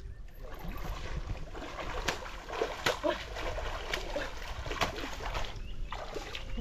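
A hooked catfish thrashing at the water's surface, with several sharp splashing slaps over the steady rush of flowing river water.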